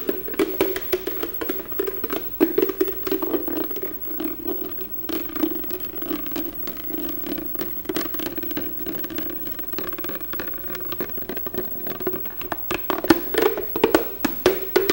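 Experimental music on found-object percussion instruments: rapid, irregular clicks and taps over a sustained, wavering mid-pitched drone. The taps grow denser near the end.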